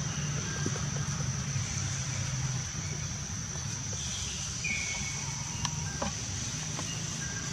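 Outdoor background: a steady low hum and a steady high-pitched whine, with one short high chirp about five seconds in and a few soft clicks.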